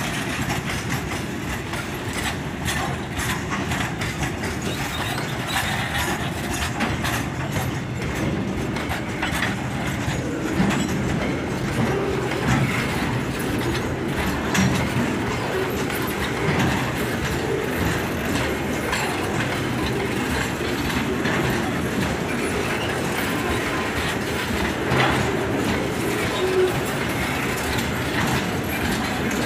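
Freight train wagons rolling past close by: a steady rumble of steel wheels on rail with a running clickety-clack as the wheels pass over the rail joints.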